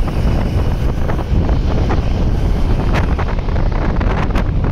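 Wind buffeting the microphone of a camera on a motorcycle moving at highway speed: a steady low rumble, with a few brief crackles between about three and four and a half seconds in.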